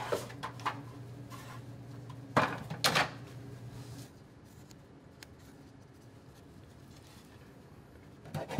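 Objects clattering as they are handled and set down on a worktable, with light clicks near the start and two sharp knocks about two and a half and three seconds in, then a quieter stretch. Just at the end a hand saw starts cutting in a plastic miter box.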